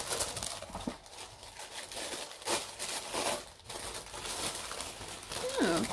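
Tissue paper and card packaging rustling and crinkling in irregular handling bursts as a beauty subscription box is opened. A short sliding tone comes near the end.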